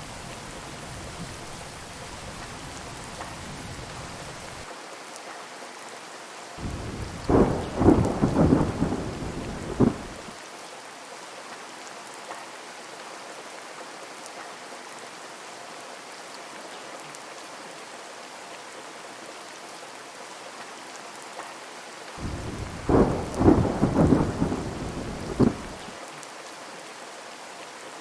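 Heavy rain falling steadily, with thunder twice: a few seconds of crackling peals about seven seconds in, and another about twenty-two seconds in.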